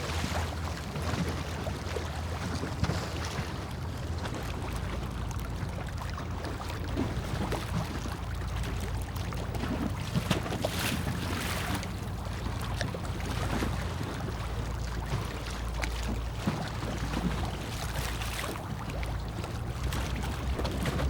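Harbour ambience: a steady low rumble with a noisy haze over it, wind on the microphone and scattered small clicks.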